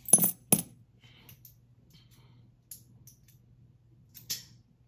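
Silver Barber dimes clinking against each other and against other coins as they are handled and set down: two sharp clinks at the start, a few faint ticks, and one more clink near the end.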